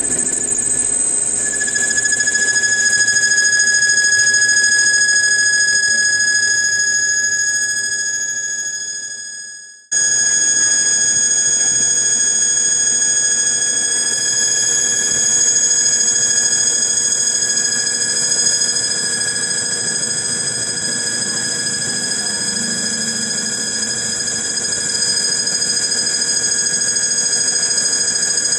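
Wasino LEO125A lathe running under power with a steady high-pitched whine. The whine dies away over a couple of seconds about ten seconds in, then comes straight back and runs steadily again.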